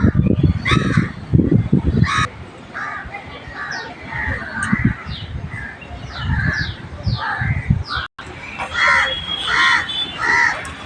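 Birds calling: a run of short, high, downward-sweeping chirps, then four harsh, honking calls near the end, over a low rumble.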